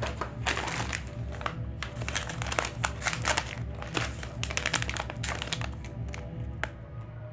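Plastic shopping bag and a shiny plastic pouch crinkling and rustling in quick, irregular crackles as they are handled, over background music with a steady low beat.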